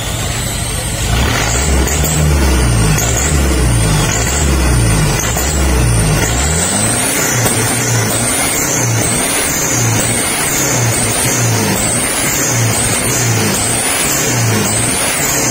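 Mitsubishi Canter truck's diesel engine running with its engine bay open while being tuned. It is held fairly steady at first, then revved in quick repeated blips from about halfway, a little more than one a second. Each rev carries a high whine that rises and falls with it.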